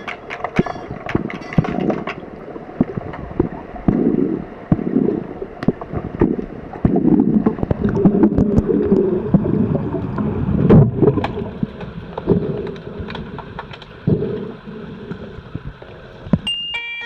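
Underwater pool sound of an underwater hockey game: many sharp clicks and knocks with repeated bursts of low bubbling and water rush, muffled as heard through a submerged camera. Near the end a short high buzzing tone sounds.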